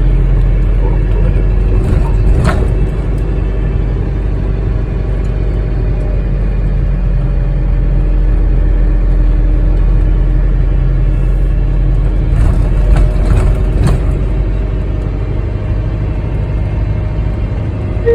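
Steady low rumble of a truck's engine and tyres, heard from inside the cab while driving. A few brief clicks come about two and a half seconds in and again around thirteen to fourteen seconds.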